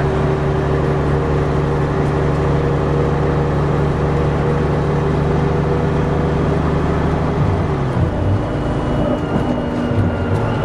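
MCW Metrobus double-decker's Gardner diesel engine running with a steady note. About three-quarters of the way in, the note changes and a faint high whine comes in.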